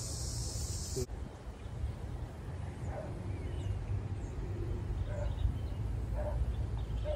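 Outdoor ambience: insects buzz steadily until it cuts off about a second in, then a low wind rumble on the microphone with scattered faint short chirps.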